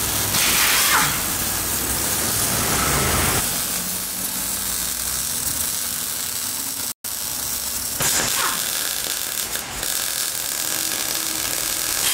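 Electric welding arc crackling and hissing steadily as a weld bead is run, with the sound cutting out for an instant about seven seconds in.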